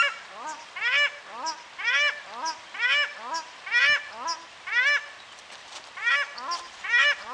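A pair of paradise shelducks calling: a steady run of honking calls that rise and fall in pitch, about two a second, louder ones coming roughly once a second.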